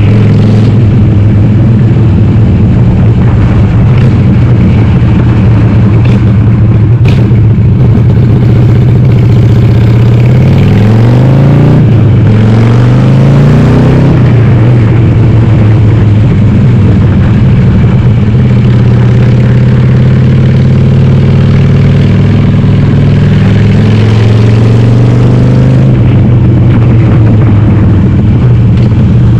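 Harley-Davidson Sportster air-cooled V-twin, bored to 1200, running through Cobra Speedster 909 exhaust with the dB killers removed, heard at riding speed. The engine pitch climbs a couple of times about a third of the way in as it accelerates, then holds steady, with a slow rise near the end.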